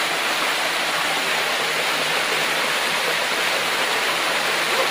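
Rushing water from a waterfall, a steady even rush that does not change.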